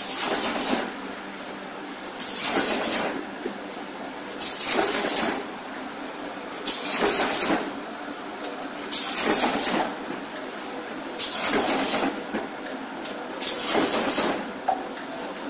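Automatic cardboard partition assembly machine running its cycle: a steady mechanical running noise, broken about every two and a quarter seconds by a loud rushing burst that lasts under a second.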